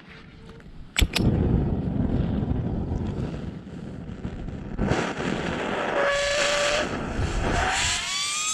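A sharp click, then a motor running with a low rumble. Near the end a whine rises in pitch, like a machine spinning or revving up.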